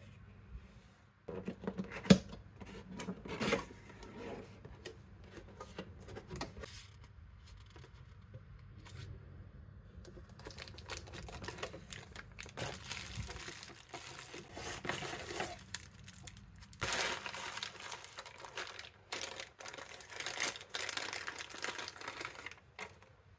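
Unboxing handling noise: a cardboard box being opened, with a sharp snap about two seconds in, then a clear plastic bag and bubble wrap crinkling and rustling in irregular bursts as a microphone is lifted out and handled.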